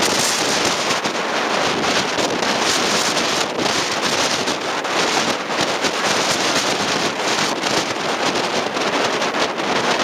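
Strong typhoon wind buffeting the microphone in gusts, over the rush of a rough sea with waves breaking.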